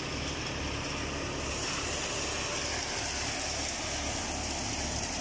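Fiat 480 tractor's three-cylinder diesel engine running steadily under load, driving a belt-driven thresher that is threshing sesame. The engine throbs low under the thresher's steady rushing whir.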